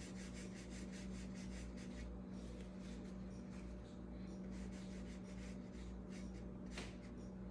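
Pointed Sceptre Gold watercolour brush dragging paint across paper in short, light strokes, several a second, with one stronger stroke near the end. A steady low hum sits underneath.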